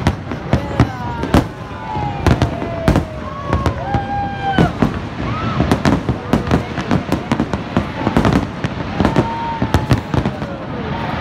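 Aerial fireworks shells bursting in a rapid, irregular series of bangs, several to a few a second, with no letup.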